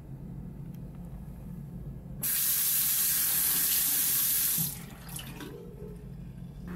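Water from a single-lever mixer tap running into a washbasin. The tap comes on sharply about two seconds in, runs steadily for about two and a half seconds, then is shut off, leaving a brief trickle.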